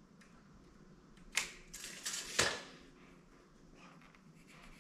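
Hands wrapping string around a pencil: faint handling clicks and rustles, with two sharper taps about one and a half and two and a half seconds in.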